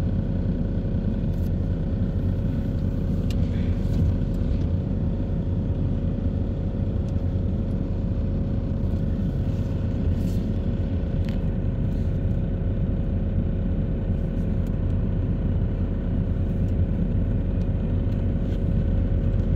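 Steady low rumble inside a car's cabin, its engine running as it creeps along in slow traffic, with a steady hum and a few faint ticks.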